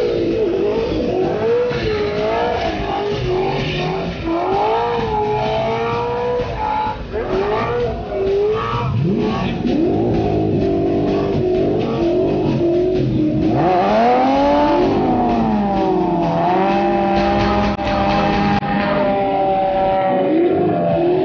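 Several drift cars sliding in tandem, their engines revving up and down again and again, with tyres screeching over the engine noise.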